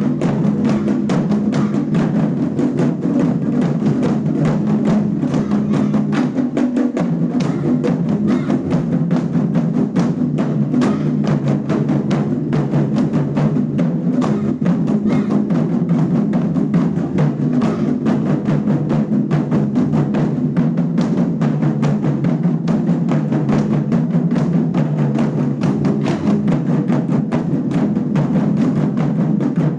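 A school drum ensemble playing continuous, fast drumming: many drums struck in dense, rapid strokes with no break, recorded live on a phone.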